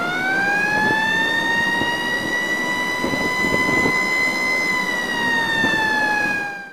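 A single long, high whistle tone that rises in pitch as it starts, holds steady, then sags slightly in pitch near the end before cutting off suddenly, over steady background noise.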